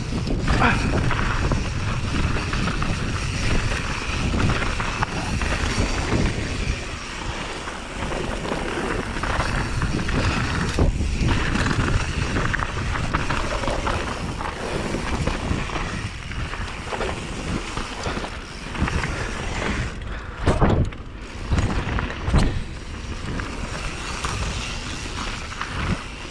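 Mountain bike riding down a dirt trail: tyres rolling over packed dirt and loose stones, the bike rattling over the bumps, with steady rushing noise on the camera's microphone. A couple of sharper knocks come a few seconds before the end, as the bike hits bigger bumps.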